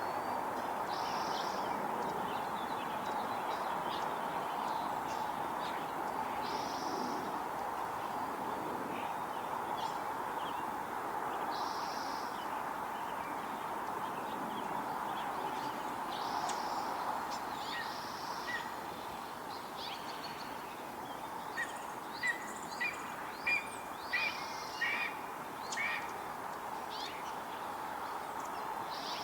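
Red-tailed hawk making unusual short, high calls every few seconds, which the uploader takes for a female calling for her mate. A rapid run of short, sharp chirps comes about three-quarters of the way through, all over a steady background hiss.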